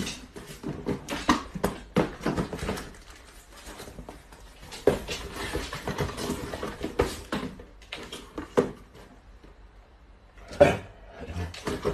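Small cardboard boxes knocking and rustling as they are handled and packed into a larger cardboard carton, in irregular knocks with a quieter pause before one last knock near the end.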